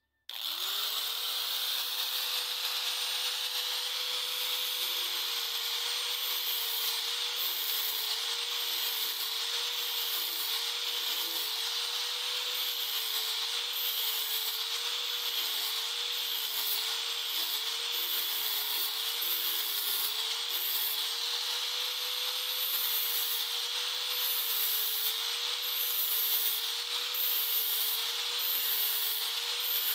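Electric angle grinder with an abrasive disc starting up, its motor pitch rising briefly, then running steadily while grinding a steel bolo blade. A high grinding hiss of disc on steel comes and goes over the motor's steady tone.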